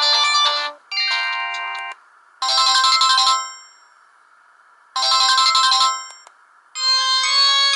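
Samsung GT-E1050 mobile phone ringtones played in turn. A melody ends, a short tone sounds, then a bright ring burst plays twice about two and a half seconds apart with pauses between. A new melody begins near the end.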